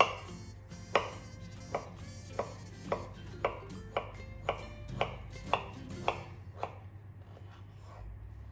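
Kitchen knife slicing through a boiled bamboo shoot and knocking on a wooden cutting board: about a dozen separate cuts, roughly two a second, stopping near the end.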